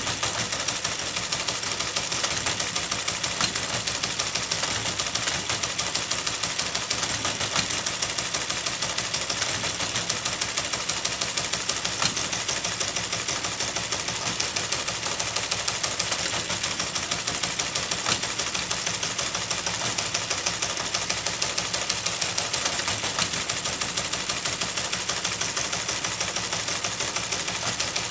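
Typewriter typing text at a fast, even rate: a continuous clatter of type strikes, many per second.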